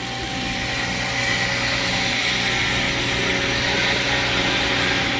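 A machine running steadily: a motor's even hum with a loud hiss over it.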